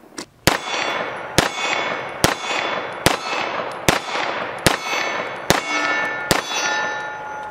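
Eight 9mm shots from a Grand Power X-Caliber rotating-barrel pistol, fired at a steady pace of about one every 0.8 seconds. A metallic ringing follows the shots and lingers after the last one.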